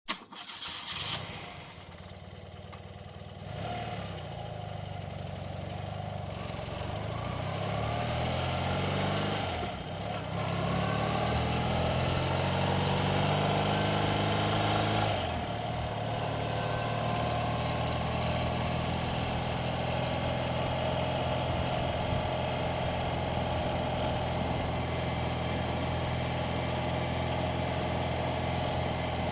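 1982 BMW 980cc air-cooled flat-twin motorcycle engine starting up and catching at once. The revs climb slowly, dip about ten seconds in, climb again, then drop back at about fifteen seconds to a steady idle.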